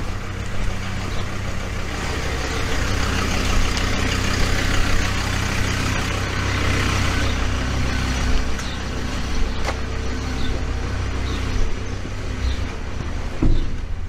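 A motor vehicle engine running steadily on a street, a low hum under general traffic noise that swells in the middle and drops away shortly before the end. A short thump near the end.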